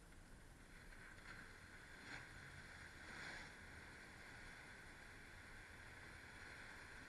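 Pickup truck driving through a shallow pond: a faint, hissing wash of splashing water that swells about a second in, with the engine low underneath, picked up thinly by a trail camera's microphone.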